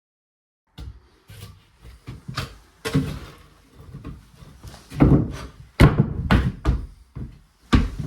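A cut floorboard patch being fitted and knocked down into place over the joists: a series of wooden thuds and knocks, getting heavier from about halfway through.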